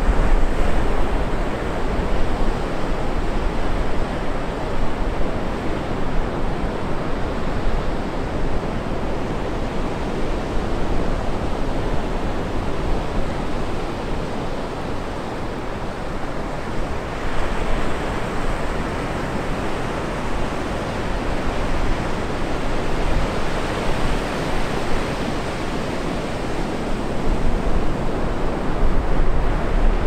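Atlantic surf breaking continuously on a sandy beach: a steady wash of waves that swells and eases slowly, with a brighter hiss of foam coming in about halfway through.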